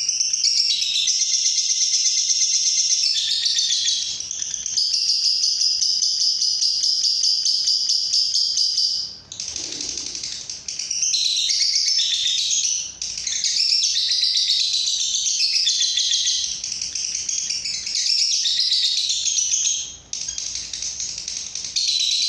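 Masteran bird-song recording played to train a pet myna: dense, high-pitched chirping and trilling. The first half is long, steady trills. The second half is quicker, varied chirping phrases, with brief breaks about 9 seconds in and near 20 seconds.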